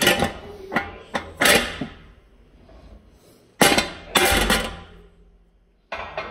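Steel dimple-die tooling being handled: a few sharp metal clinks and knocks in the first second and a half, then a louder cluster of clunks about four seconds in and one more near the end.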